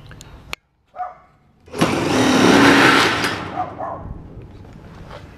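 Cordless drill running at speed for about a second and a half, driving a screw through the bottom lip of a lattice fence-extension panel into the fence, after a short click.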